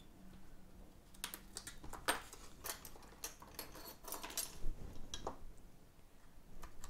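Small tools clicking and tapping against the parts of an iPhone 7 as it is taken apart: a dozen or so light, irregular clicks.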